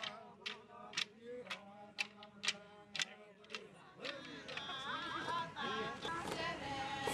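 Wooden dance sticks struck together in a stick dance at about two sharp clacks a second, under low male chanting. About four seconds in this gives way to a group of women singing together.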